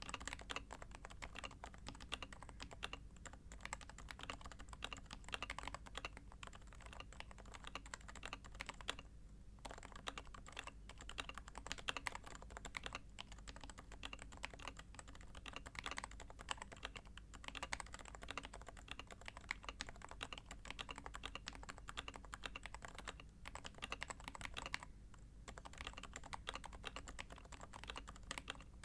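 Continuous typing on a Sho S60v2 Topre keyboard with 45 g HHKB rubber domes, MX sliders, a copper plate and DCS blank keycaps: a fast run of muted keystrokes, with brief pauses about nine seconds in and again about twenty-five seconds in.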